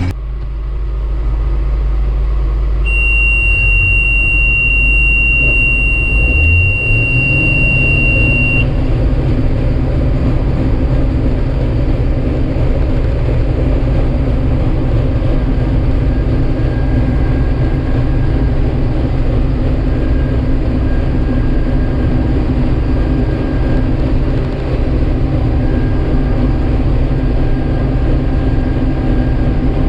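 Combine harvester's diesel engine running steadily, its low note stepping up in pitch about seven seconds in. A steady high-pitched tone sounds for several seconds early on, over the engine.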